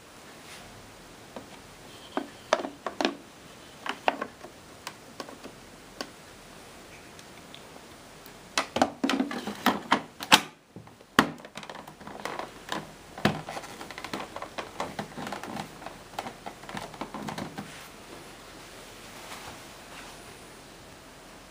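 Handling noises: scattered sharp clicks and knocks with rustling, densest about halfway through, then lighter rattling that fades out a few seconds before the end.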